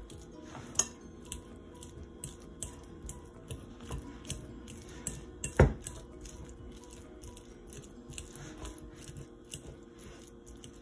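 A metal fork mashing avocado in a glass bowl: a quick run of clicks and scrapes of the tines against the glass, with one louder knock a little past the middle.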